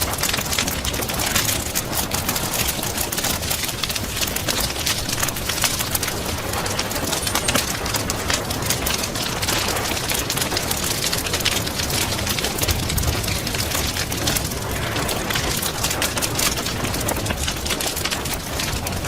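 Wood fire crackling with frequent sharp pops and snaps, mixed with steady rain.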